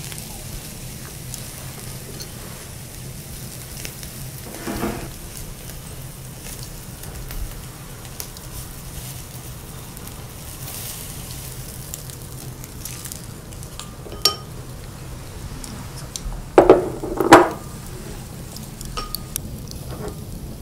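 Matsusaka wagyu beef and vegetables sizzling steadily on a wire grill over charcoal. Scattered light clicks of chopsticks and tableware, with two sharp clinks about three-quarters of the way through as the loudest sounds.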